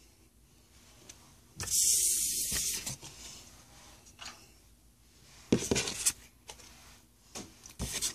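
Trading cards and foil booster-pack wrappers being handled: a loud papery rustle about two seconds in, then a few short sharp crinkles and clicks later on.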